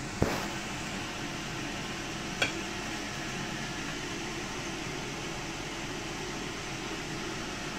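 Steady background hiss of room noise, with two short sharp clicks: one just after the start and another about two seconds later.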